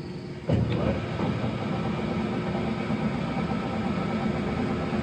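Monarch engine lathe running, a steady machine hum with a few steady tones; it comes up sharply about half a second in and then runs on evenly.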